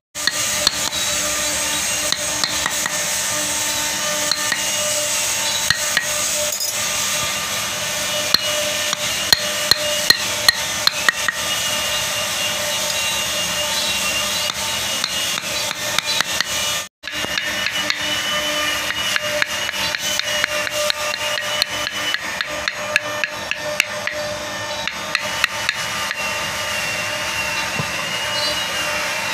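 Hand chisel struck with a wooden mallet, cutting into a carved wooden furniture leg: many quick, light taps at an uneven pace, over a steady background hum.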